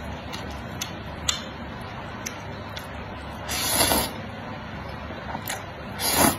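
Thin noodles slurped twice with chopsticks, about three and a half seconds in and again near the end. Each slurp is a loud hiss that swells as the strands are sucked in. A few faint clicks come between the slurps.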